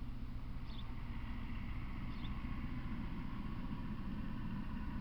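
Steady low outdoor rumble with two brief high chirps, one under a second in and one about two seconds in.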